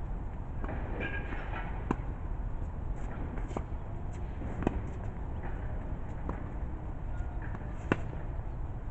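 Tennis rally on a hard court: a series of sharp pops from racket strikes and ball bounces, spaced a second or two apart, the loudest about two seconds in, midway and near the end, over a steady low rumble.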